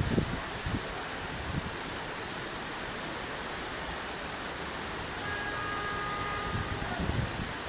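Steady rain falling, an even hiss, with low wind buffets on the microphone just after the start and near the end. A faint steady high tone sounds for about a second past the middle.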